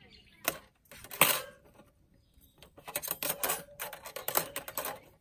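Stainless steel parts of a CAPTAIN STAG V-type folding barbecue grill clinking and clattering: two sharp knocks in the first second or so, then a run of rapid light metallic clicks from about three seconds in as the wire rack is set into the firebox.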